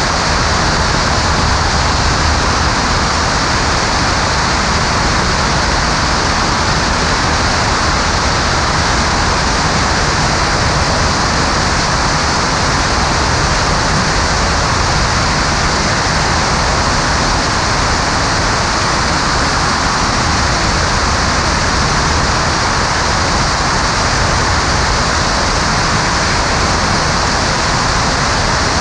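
Steady rush of wind over an outside-mounted camera in flight, with the engine and propeller of a Maule M5-180C running underneath at a constant setting.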